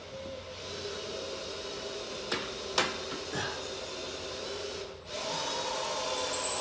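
Hand tools scraping and clinking on metal while fitting an engine's starter bolt, with three sharp clinks in the middle, over a steady background hum.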